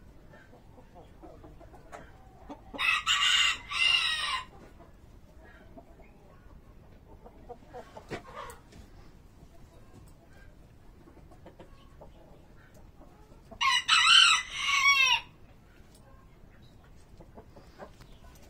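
Shamo gamefowl rooster crowing twice, about ten seconds apart, each crow lasting about a second and a half.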